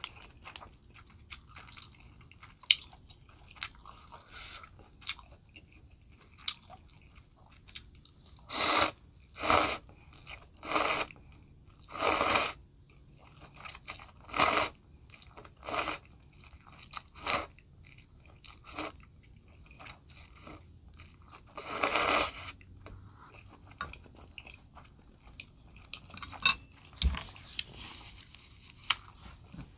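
Close-miked eating of noodles in spicy soup: a run of loud slurps in the middle and one more a little later, with softer chewing and mouth clicks between them.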